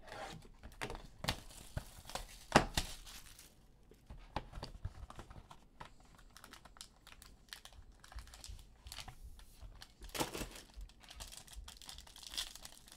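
A trading card pack wrapper being torn open and crinkled, with the cards inside being handled: an irregular run of small clicks and rustles, with a sharp snap about two and a half seconds in.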